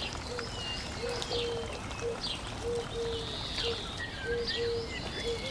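Birds chirping: short gliding chirps and whistles, over a string of short, low, steady notes repeated every half second or so.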